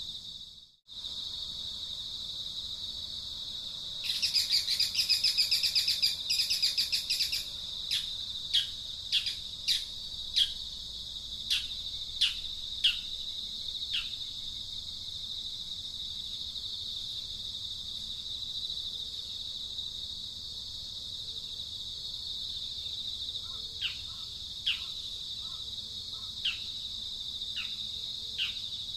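Steady high-pitched insect drone throughout, with birds calling over it: a loud rapid buzzy trill a few seconds in, then a run of short downward-sliding chirps, about one every half second, and five more scattered chirps near the end.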